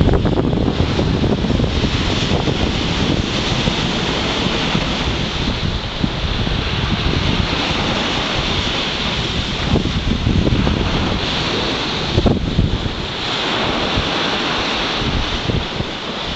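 Sea waves breaking and washing against a concrete sea wall at a spring high tide, a continuous surf with gentle rises and falls. Wind buffets the microphone with a low rumble.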